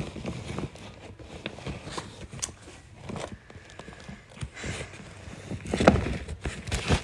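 Scattered knocks, thumps and rustling as things are picked up and carried by hand, mixed with handling noise on the phone's microphone; the loudest knocks come about six seconds in.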